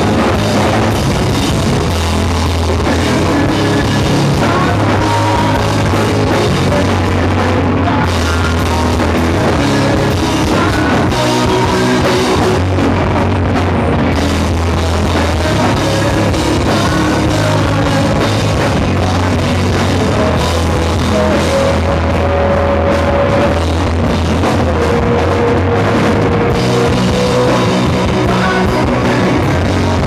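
Live rock band playing loud and without a break: electric guitars, bass guitar and drum kit.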